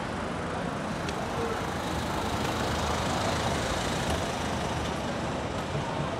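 Road traffic on a city street: a steady wash of passing vehicles that swells slightly near the middle.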